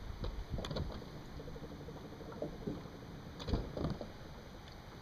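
Knocks and thumps on a fishing boat as the angler moves and handles his gear, in two clusters: one about half a second in and another about three and a half seconds in.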